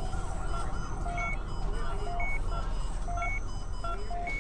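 Short electronic beeps at several different pitches, sounding irregularly and overlapping, over a steady low rumble. A falling siren tone fades out at the very start.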